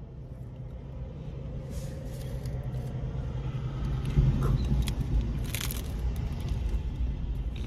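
Chewing and a crunchy bite into a hard-shell taco, with a few soft crackles about two, four and five-and-a-half seconds in, over a steady low vehicle rumble.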